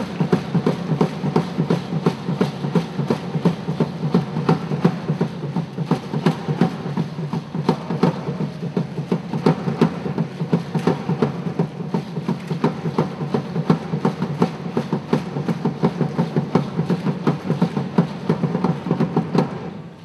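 Live ensemble of hand drums playing a fast, driving, steady rhythm for the dancers. The drumming cuts off suddenly at the end.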